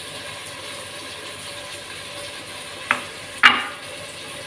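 A hand squeezing and working chilli powder and fish-curry powder with a little water into a thick paste in a glass bowl, a soft wet scraping. About three seconds in come two sharp knocks half a second apart, the second louder.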